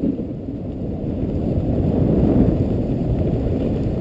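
Steady rumble and hiss of a dogsled running over snow, with wind on the microphone.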